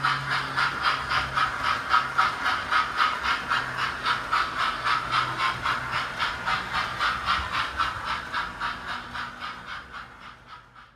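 Model GWR King class steam locomotive, No. 6006 King George I, running with its carriages: an even, rapid beat about four or five a second over a faint low hum, fading away near the end as the train moves off.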